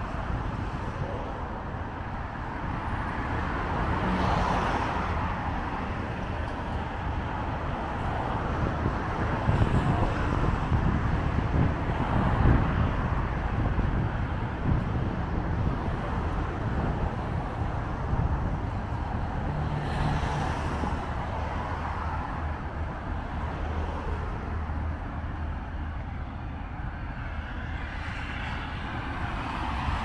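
Steady road traffic on a multi-lane avenue, with cars swelling past one after another every few seconds.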